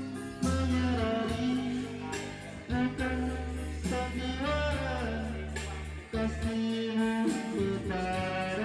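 Music with guitar, a singing voice and a strong deep bass line, played back through a BMB 10-inch speaker and CVR 12-inch subwoofer set.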